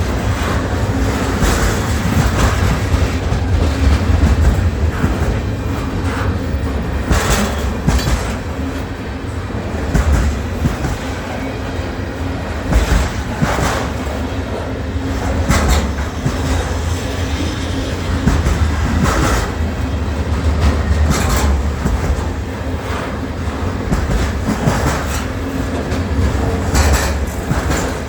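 Train running on rails: a steady low rumble with irregular sharp clacks of wheels passing over rail joints.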